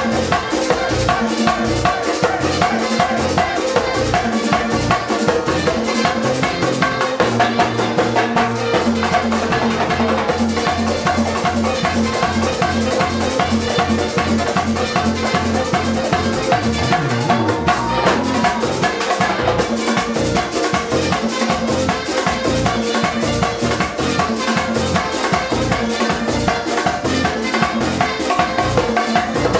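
A live Latin band playing with a steady driving beat: drums and percussion struck with sticks, a bass line, guitar and keyboard.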